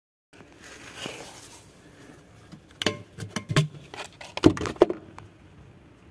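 Close handling noise: a soft hiss, then a quick cluster of sharp clicks and knocks over about two seconds, the loudest about four and a half seconds in.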